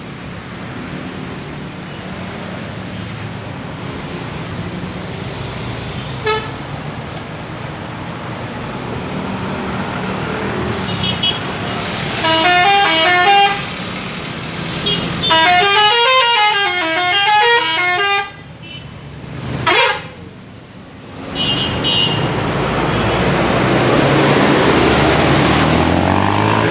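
Tour bus's multi-trumpet 'telolet' horn playing a warbling Pakistani-style tune, a short phrase about twelve seconds in and a longer one about fifteen seconds in, with short single blasts before and after. Under it the bus's engine rumble grows steadily louder.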